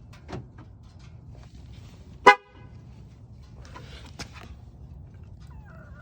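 A single short car-horn toot about two seconds in, with a few faint clicks around it.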